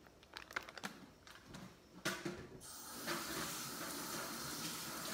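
Plastic food bag crinkling with a few clicks and knocks as it is handled. Then, about two and a half seconds in, a kitchen tap starts running with a steady hiss.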